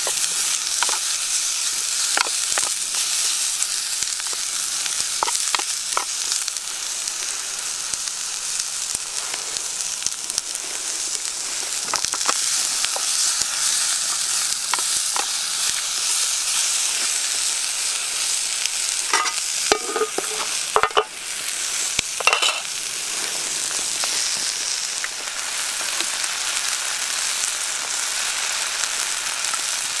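Salami slices and cherry tomatoes sizzling steadily in a small camping frying pan, stirred with a wooden spatula that scrapes and taps against the pan now and then, with a few sharper knocks about two-thirds of the way through.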